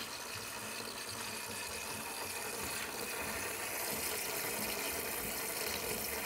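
DeLonghi Dinamica ECAM350.55 automatic coffee machine frothing milk from its milk carafe and dispensing it into a glass for a latte macchiato: a steady mechanical hum with hiss, growing a little louder about three seconds in.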